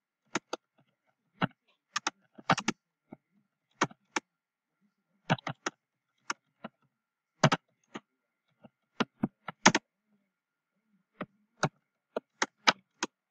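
Computer keyboard being typed on: sharp, irregular key clicks, two or three a second, in short runs with pauses between words.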